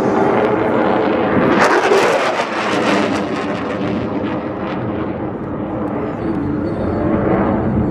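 Jet noise from several F-16 fighters climbing and splitting apart in a bomb-burst maneuver. It is loudest about two seconds in, with a crackling rush, then eases to a steadier rumble.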